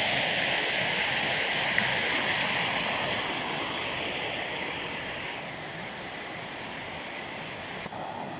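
Small waterfall pouring over a rock into a pool: a steady rush of falling water that grows gradually fainter over the first five seconds or so.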